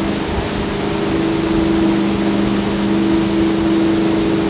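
Motorboat engine running steadily at speed, a constant two-note hum under loud rushing wind and water noise.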